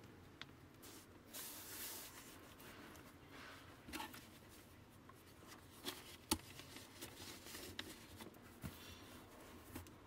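Faint rustling of paper and cardboard as hands handle a string-tied cardboard box and a paper form, with a few light clicks and taps, the sharpest about six seconds in.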